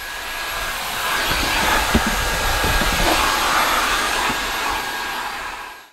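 Dyson cordless stick vacuum running steadily with a high motor whine, cleaning a van's footwell; it stops near the end.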